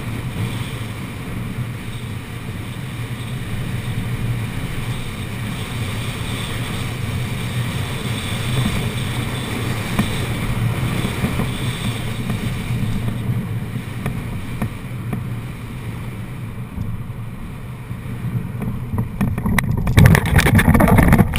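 Rushing wind noise on a hang glider's wing-mounted microphone during the final glide, steady with slow surges. Near the end the glider touches down in tall grass, with a louder burst of rustling and knocks.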